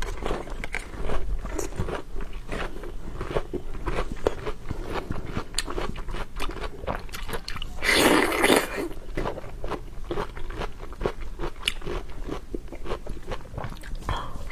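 A person biting and chewing crunchy food: quick, irregular crisp crunches throughout, with one louder noisy rush lasting about a second a little past halfway.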